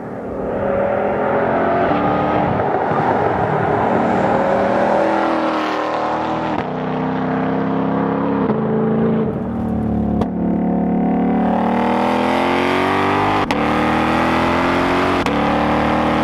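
2020 Ford Mustang Shelby GT500's supercharged 5.2-litre V8 under hard acceleration. The revs climb and drop back at several quick gearshifts of its seven-speed dual-clutch gearbox, then climb steadily again.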